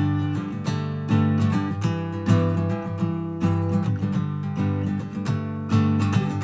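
Acoustic guitar music: the instrumental opening of a song, with evenly paced strummed chords.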